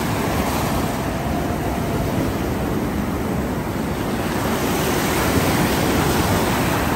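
Steady rush of sea waves breaking and washing up a sandy beach, growing a little louder past the middle.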